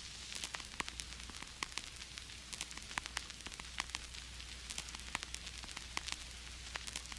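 Vinyl record surface noise: a steady hiss over a low hum, with irregular crackles and pops.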